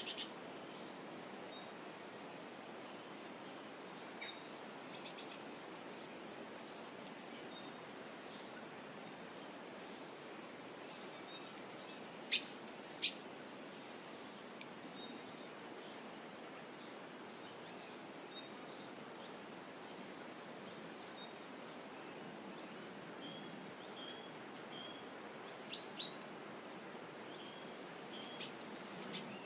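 Wild birds chirping and calling in short, scattered notes over a steady outdoor background hiss, with the loudest chirps about twelve to fourteen seconds in and again near twenty-five seconds.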